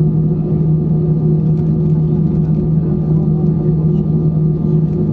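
Inside an Airbus A319 cabin while it taxis: the jet engines at low power make a steady hum over a continuous low rumble.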